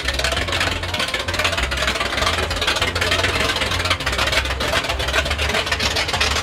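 Ford mud truck's V8 on open headers idling and creeping at low revs as the truck is driven off a trailer, with a rapid, choppy exhaust beat.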